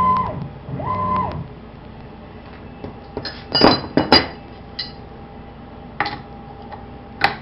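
Sharp metallic clinks and clicks from small metal tools and a router bit being handled, about five spaced over several seconds. Two short steady tones sound near the start.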